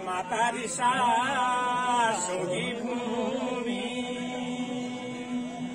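Group of men singing a Garhwali devotional folk song of the Nanda Devi Raj Jat in a chant-like style. The melody wavers over the first couple of seconds, then settles into one long held note.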